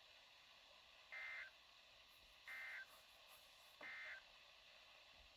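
Three short, identical bursts of EAS SAME digital data tones over the weather-radio broadcast, each about a third of a second long and a little over a second apart: the end-of-message code that closes a warning.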